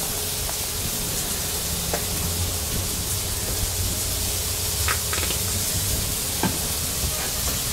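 Steady sizzling of food frying, over a low steady hum, with a few faint clicks.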